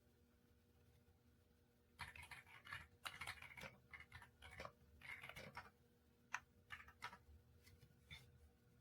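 Faint typing on an Aula F99 mechanical keyboard with Graywood V3 switches. About two seconds in, a quick run of keystrokes clatters for some three and a half seconds, then a few single key clicks follow, spaced apart.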